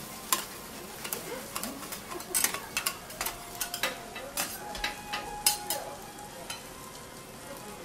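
Okonomiyaki and noodles sizzling on a teppan griddle while two metal spatulas clack and scrape against the hot plate. The sharp metallic clicks come thick through the first several seconds, with a thin ringing note in the middle, and thin out near the end, leaving the sizzle.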